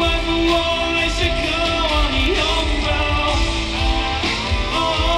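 Live pop-rock band music with a male singer holding long notes, heard from the audience through the concert's sound system.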